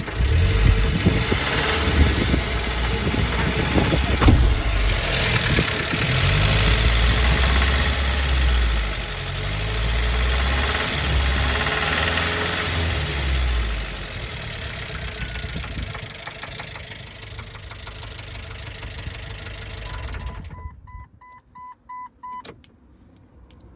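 1998 Jeep Wrangler TJ's 2.5-litre four-cylinder engine running on the move, its pitch stepping up and down as it revs and settles. The owner reports a knock in this engine that appears only when warm, above 2000 rpm at part throttle, together with dropping oil pressure. The engine noise eases off and stops about 21 seconds in, followed by a short run of pulsing chime beeps and a click.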